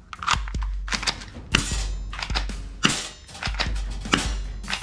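A string of sharp plastic clicks and snaps, roughly every half second, from a gold toy pistol as it is handled and its mechanism worked, over background music.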